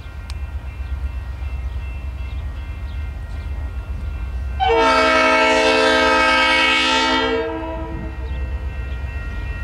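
Diesel locomotive air horn sounding one long blast of about three seconds, a chord of several notes, as the train approaches a grade crossing. A low steady rumble runs underneath.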